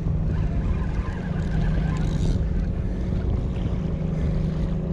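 Wind rumbling on the microphone, with a steady low hum underneath.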